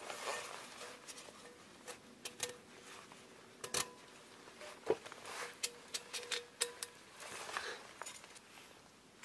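Hands handling small camp gear: scattered sharp clicks and taps with light rustling, irregular and spread throughout.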